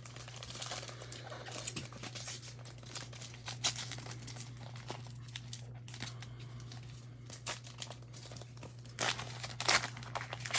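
Crinkling and tearing of a plastic trading-card pack wrapper being opened and handled, a run of irregular crackles that gets busier near the end.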